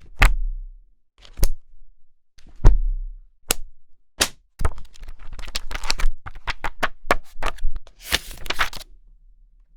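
Book sounds: a hardcover book shut or dropped with a sharp slap and a low thump, twice, then a few lighter taps. After that comes a quick run of crackly page flips and a brief rustle of pages being riffled.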